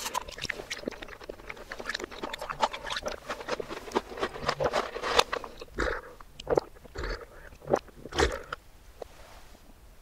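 Close-miked chewing and crunching of a wafer-coated chocolate ball: dense small crackles and clicks for about the first five seconds. In the second half come a few separate gulps of milk from a glass. The eating sounds are played in reverse.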